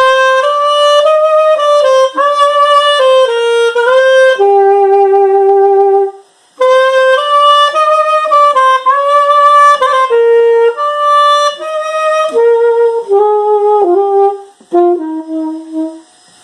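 Parisian Ambassador alto saxophone with its lacquer stripped off, played solo: a melodic phrase of held and moving notes, a short pause for breath partway through, then a second phrase that ends on softer low notes near the end.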